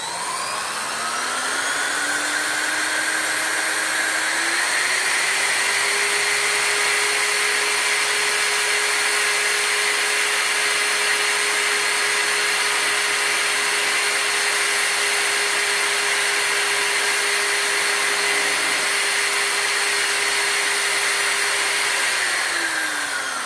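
Corded electric drill running in reverse, spinning a wooden chopstick to wind plastic grafting tape off a roll. Its motor whine climbs in pitch as it speeds up over the first few seconds, holds steady, then drops as the drill slows near the end.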